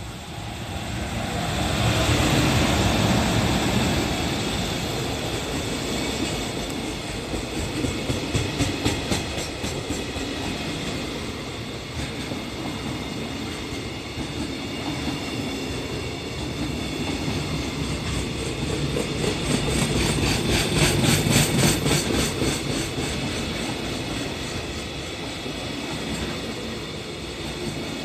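Container freight train hauled by an EF210 electric locomotive running through a station at speed: the locomotive goes past loudest about two seconds in, then a long string of container wagons rolls by with a steady rumble. Rhythmic clickety-clack of the wagon wheels over rail joints comes through twice, briefly near 8 to 10 seconds and more strongly around 20 seconds.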